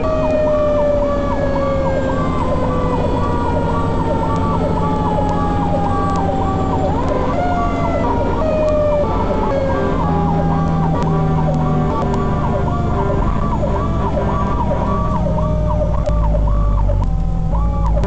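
Fire engine's siren heard from inside the cab, cycling rapidly at several sweeps a second. Under it, a second, lower siren tone slowly falls in pitch and starts again about halfway through, over the rumble of the truck's engine, which grows louder near the end.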